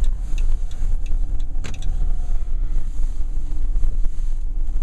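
Steady low rumble of a car driving, heard from inside the cabin, with a faint steady hum and a single sharp click about a second and a half in.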